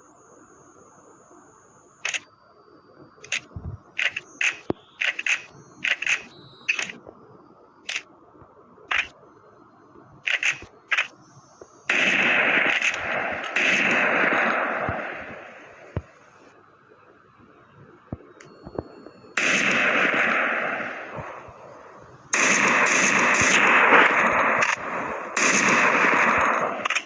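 Sharp metallic clicks and clacks of Saiga 12K shotgun parts being handled during disassembly and assembly, then three long stretches of loud rushing, scraping noise from about twelve seconds in.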